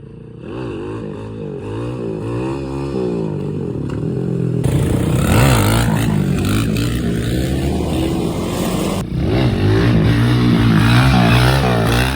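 Small dirt bike engine revving up and down as it is ridden, loud through an exhaust with the baffle removed and holes drilled in the pipe. The sound changes abruptly twice, at cuts between clips.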